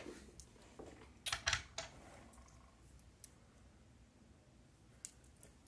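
A few light clicks and taps of small metal soldering-iron tips being handled in the fingers, several in quick succession about a second and a half in and a couple more near the end.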